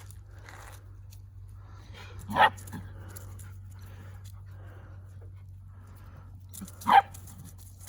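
A dog barks twice, once about two seconds in and again near the end, over a steady low hum.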